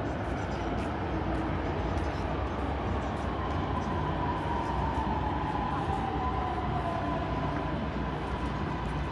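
Electric train running at the station, its motor whine sliding down in pitch over a few seconds while a second tone holds steady, over a constant low rumble and hum.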